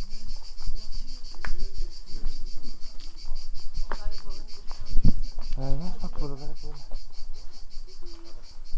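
Summer insects trilling steadily in the trees and grass, a high pulsing buzz of about five beats a second. A voice is heard briefly in the background around the middle.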